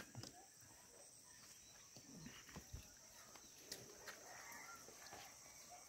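Near silence: quiet outdoor ambience with a faint, steady high-pitched insect drone and a few soft footsteps on a stone path.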